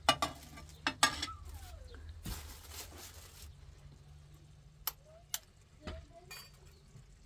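Sharp taps and clinks against a metal cooking pot as eggs are knocked on its rim and cracked into tomato sauce, the loudest about a second in. A rustling hiss lasts about a second in the middle.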